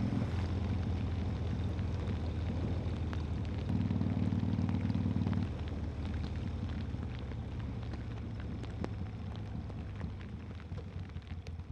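Harley-Davidson V-twin motorcycle engine running under way, with heavy rain pattering and ticking on the camera microphone. The engine gets louder for a second and a half about four seconds in, then eases off and runs lower.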